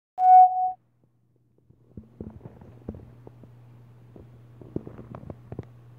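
A short, loud electronic beep lasting about half a second. From about two seconds in there is a low steady hum with scattered light clicks and knocks of handling.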